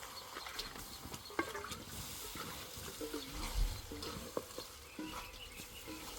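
A large pot of jollof rice being stirred with a spoon: scattered scraping and knocking with faint sizzling from the hot oil, and one dull thump about three and a half seconds in.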